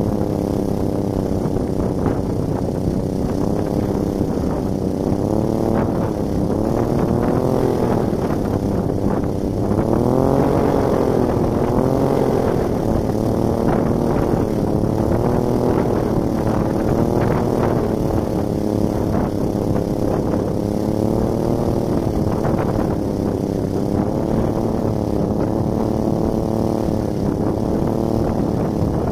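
Small 3D-printed two-bladed wind turbine spinning in strong gusty wind, its rotor whirring with a pitch that swells and sags as the gusts speed it up and slow it down, highest about ten seconds in. Wind buffets the microphone underneath.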